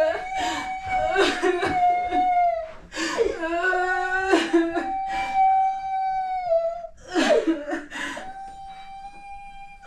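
A woman's voice wailing in long, drawn-out high cries, several in a row, each held steady and dropping away at the end, as she weeps.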